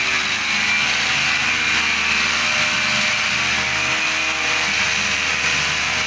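Electric drill boring steadily into a concrete ceiling, a loud, continuous grinding rattle.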